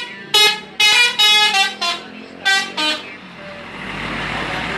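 Telolet bus horn tooting a quick melodic run of about eight short notes at changing pitches. From about three seconds in, a steady rushing vehicle noise with a low rumble builds.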